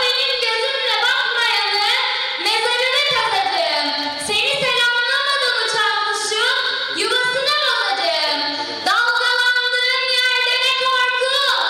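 A young girl singing a Turkish song into a microphone, in a clear child's voice with drawn-out notes, holding one long note near the end.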